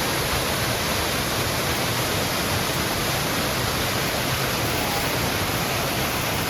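Waterfall close by: water crashing and rushing in a loud, steady roar.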